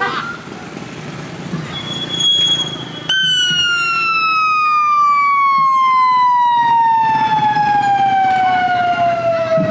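Police motorcycle siren: a brief steady high tone about two seconds in, then a loud single tone that starts abruptly about three seconds in and falls slowly and steadily in pitch.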